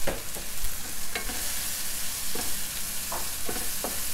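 Chicken pieces sizzling in hot oil in a nonstick frying pan, a wooden spatula stirring and scraping through them in about six short strokes as ginger-garlic paste is fried in.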